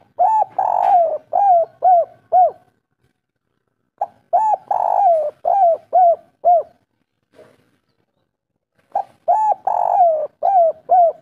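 Spotted dove (tekukur) cooing: three phrases about four and a half seconds apart, each a short note, a longer drawn note, then three short coos. It is the three-note ending of the 'kuk 3' song type that Indonesian dove keepers prize.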